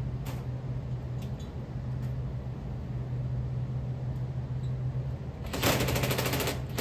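Steady low hum of a running Bard wall-mount HVAC unit with its newly fitted condenser fan motor. About five and a half seconds in, a rapid rattling run of clicks lasts about a second and is the loudest sound.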